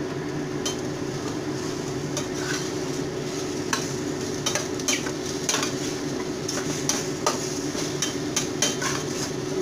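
A utensil stirring okra and vegetables in a stainless steel pot, with irregular metal clinks and scrapes against the pot starting under a second in, over food sizzling and a steady hum.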